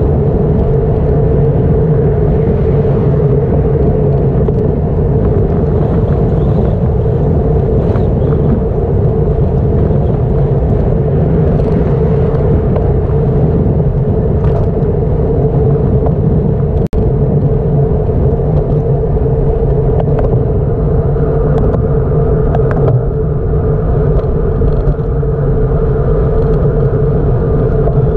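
Steady loud wind and road rumble on the microphone of a camera riding along on a bicycle, with a constant low hum under it. The sound briefly cuts out about seventeen seconds in.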